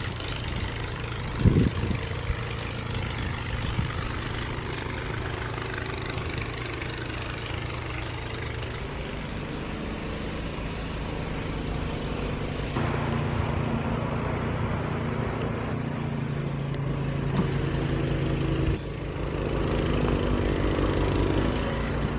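Snowblower engine running steadily, growing louder about 13 seconds in.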